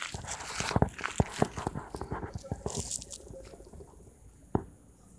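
Handling noise on a phone's microphone: a run of fast, irregular crackles and clicks in the first three seconds as the phone is moved and gripped, then a single louder click about four and a half seconds in.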